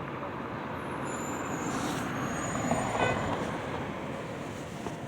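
Road traffic: a vehicle passing, its noise swelling to a peak about three seconds in and then fading.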